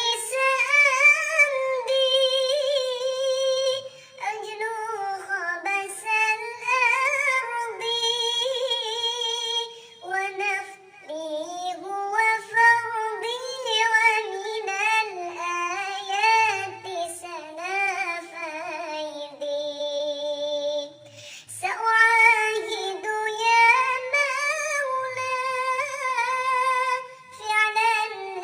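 A high, child-like voice singing a sholawat (Islamic devotional song) melody in long wavering phrases, with short breaks between phrases.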